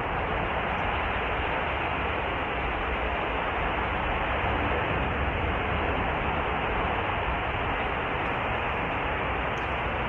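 Gas burning from an exploded natural gas pipeline: a loud, steady rushing noise with a heavy low end that does not let up.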